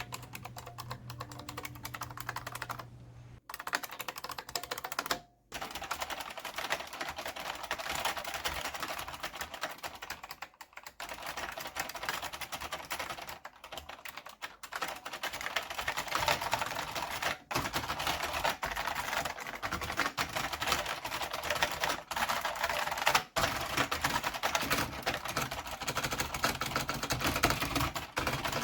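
IBM Model M122 buckling-spring keyboard, freshly bolt-modded, being typed on quickly: a dense stream of clicky keystrokes with a couple of short pauses a few seconds in.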